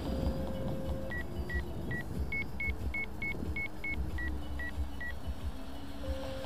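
Electronic beeping: about a dozen short high beeps in a lower-higher-lower pattern, about three a second, over steady wind rumble on the microphone.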